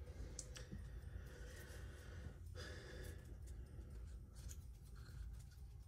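Quiet room tone: a low steady hum with faint breathing.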